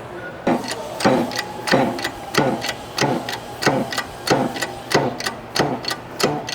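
Shop press working, a regular clicking about three times a second, as a pump drive shaft is pressed out of its bearing housing.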